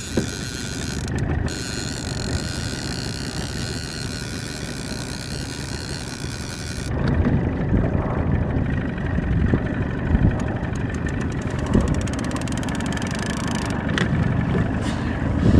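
Outboard motor of a small fishing boat running steadily at trolling speed, a low engine hum with a high whine over it. About seven seconds in the whine drops away and a rougher, lower rumble is left.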